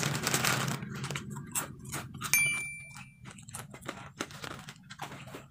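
Thin clear plastic bag crinkling and crackling as it is handled and opened, many short crackles. A single bright bell-like ding rings about two seconds in, lasting under a second.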